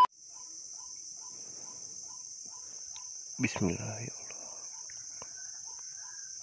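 Steady high-pitched buzzing of insects, with faint regular ticks beneath it and one short, louder sound about three and a half seconds in.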